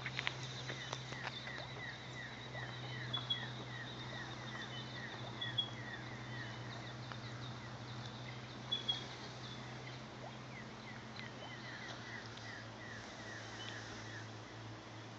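An animal calling in a rapid, even run of short falling chirps, about three a second, which stops a few seconds before the end. A faint steady high tone and a few sharp clicks sound over it.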